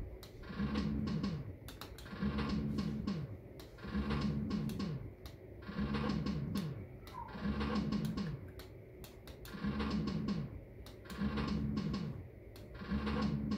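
Maygay Great Escape fruit machine playing its short electronic spin sound over and over, about every one and a half seconds, with sharp mechanical clicks as the reels spin and stop.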